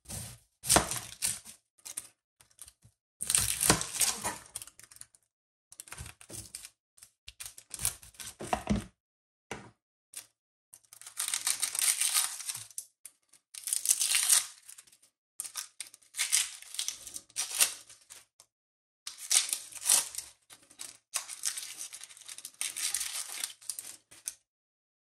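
Dry, papery onion skin crackling and tearing as a brown onion is peeled by hand, in repeated rustling bursts a second or two long with short pauses between.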